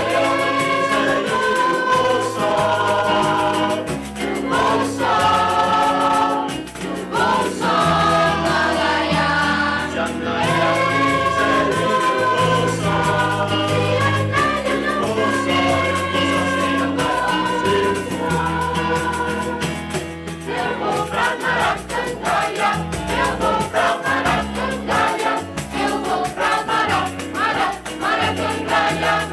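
A choir singing a song in parts, holding long notes over an instrumental accompaniment with a moving bass line.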